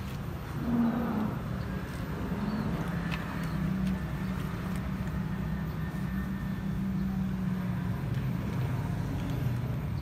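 A motor vehicle engine running steadily close by: a low hum that swells about a second in and holds through the middle. A few faint crunches of cats chewing dry kibble sit under it.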